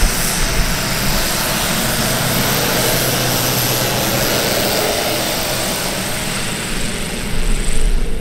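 Grob G120TP's turboprop engine running at taxi power as the aircraft rolls past and away: a steady turbine whine over the low drone of the propeller, easing slightly near the end.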